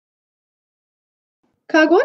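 Dead silence, then a woman's voice starts speaking near the end.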